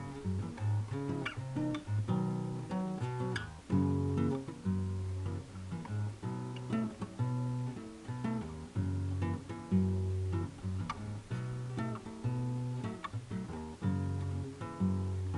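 Acoustic guitar played by hand: plucked melody notes and strummed chords over a steady line of low bass notes.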